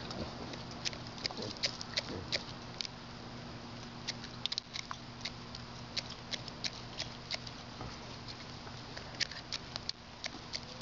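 Buff Orpington rooster pecking grain from a bare palm: quick, sharp beak clicks, irregular and often in runs of several a second, with short gaps between runs.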